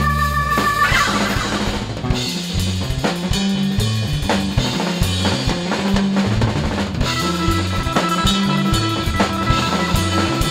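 Live rock band playing an instrumental passage: a drum kit with snare and bass drum, under an electric bass line moving through changing low notes. A sustained chord rings at the start, stops within the first second, and comes back about seven seconds in.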